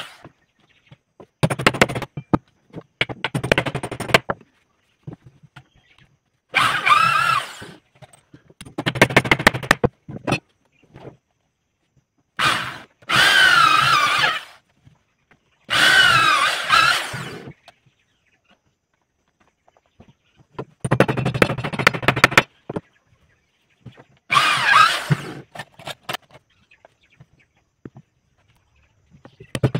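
Corded electric drill boring into wooden chair-frame pieces, run in about eight short bursts of a second or two each, its motor pitch rising and falling with the trigger.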